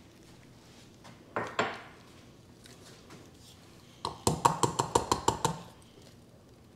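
Kitchen knife working against a plastic cutting board while skinning a trout fillet: two short knocks a little over a second in, then a quick run of about ten short scraping strokes, roughly seven a second, about four seconds in.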